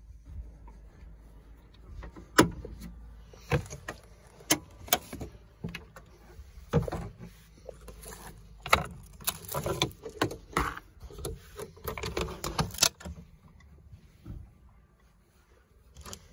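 Irregular clicks, light knocks and rattles, thickest from about 8 to 13 seconds in, then quieter near the end.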